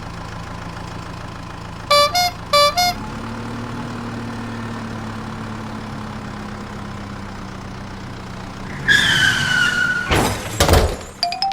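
Cartoon vehicle sound effects: a steady low engine hum, with three short horn toots about two seconds in. Near the end comes a falling tone followed by a burst of noisy clattering.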